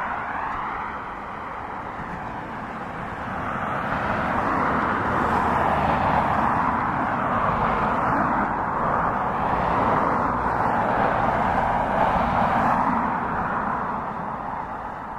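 Boeing 777 freighter's GE90 turbofan engines running at taxi thrust, a steady jet rush with a slow swirling, phasing sweep as the aircraft turns. It grows louder about four seconds in and eases off near the end.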